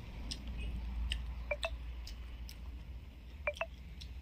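Eating by hand: soft squishes of fingers mixing rice on a plate and small wet mouth clicks while chewing, with two pairs of sharp smacks about a second and a half and three and a half seconds in. A low steady hum lies underneath.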